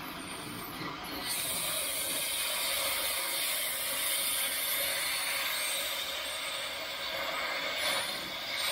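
Metal-cutting torch hissing steadily as it cuts through steel. The hiss swells up about a second in, with a brief dip near the end.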